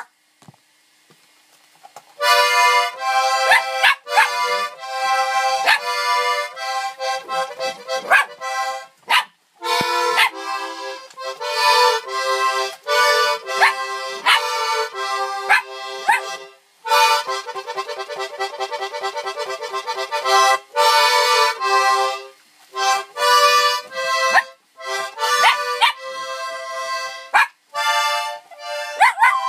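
Accordion playing chords in short phrases with brief pauses, starting about two seconds in. A sheepadoodle puppy howls along with it in short rising cries.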